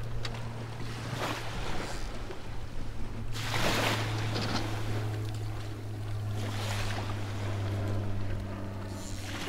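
Small waves washing onto a sandy shore, the biggest wash about three and a half seconds in, over a steady low hum.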